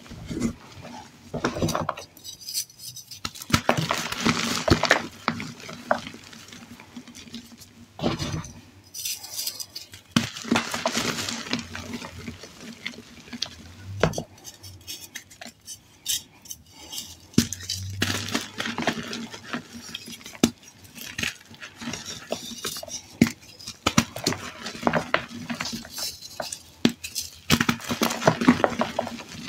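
Hands crushing and crumbling reformed gym chalk and loose chalk powder: dry, crisp crunching and crackling. It comes in repeated handfuls with short quieter pauses between.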